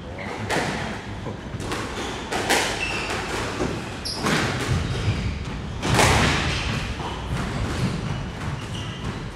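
Squash rally: the ball smacking off rackets and the court walls in an irregular series of sharp thuds, each with a short echo off the walls, the loudest about six seconds in.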